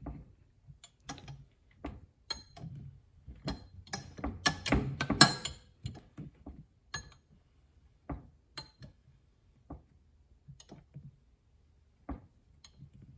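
Valve spring tester being worked by hand on a valve spring: scattered metallic clicks and clinks, busiest around four to five seconds in, then a few sparse ticks. The spring is being compressed to its installed height to read the seated pressure.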